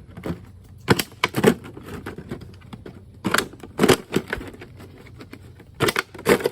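Thin plastic water bottle crackling and crinkling as a pocketknife blade stabs and cuts into it, in several bursts of sharp crackles.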